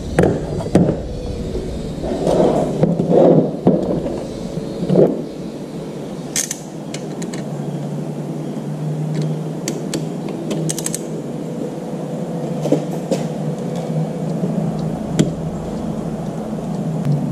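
Ratchet wrench and socket working the plugs on a Laycock overdrive unit, with handling clunks and scattered sharp metal clicks, including a quick run of clicks a little past the middle, over a steady low hum.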